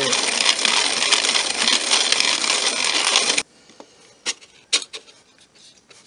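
Hand-cranked manual coffee grinder grinding coffee beans: a steady grinding noise that stops suddenly about three and a half seconds in. A few light knocks and clicks follow.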